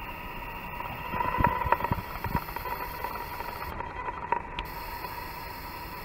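Ultrasonic probe running in a glass of water: a steady mid-pitched tone over hiss, with a burst of irregular crackles and clicks between about one and two and a half seconds in.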